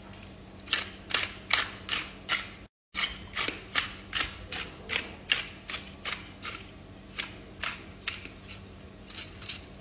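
Pepper mill being twisted to grind black pepper: a long run of short ratcheting clicks, about two to three a second, broken by a brief dropout about three seconds in.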